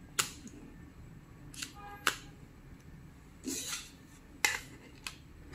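A few sharp plastic clicks and a short scrape as a phone battery is pressed and seated into the battery compartment of a cordless GSM handset.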